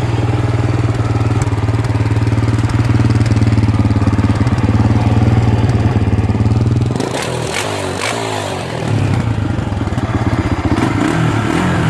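Honda 300EX ATV's single-cylinder four-stroke engine idling steadily through its stock exhaust. About seven seconds in, the engine note dips for a couple of seconds under some clattering, then the idle comes back.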